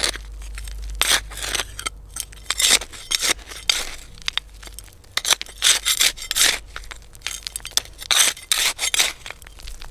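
Hand trowel scraping and digging into soil: repeated short gritty scrapes in irregular bursts, several strokes close together at a time.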